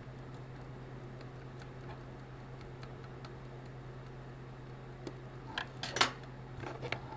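Small sharp clicks and taps of clarinet keywork and small metal tools being handled, mostly bunched between about five and seven seconds in, the loudest near six seconds. A steady low hum runs underneath.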